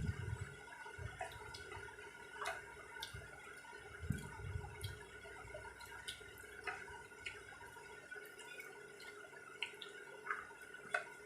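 Eating sounds: scattered small wet clicks and smacks of rice and curry being eaten by hand and chewed, with a few soft low thumps near the start and about four seconds in, over a steady faint hum from a running electric fan.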